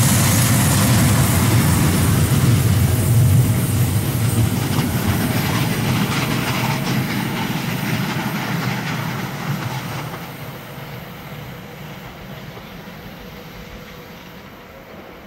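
Work train hauled by two ÖBB class 1116 Taurus electric locomotives running past, with a steady loud rumble of wheels on the rails. From about ten seconds in the sound fades as the train moves away.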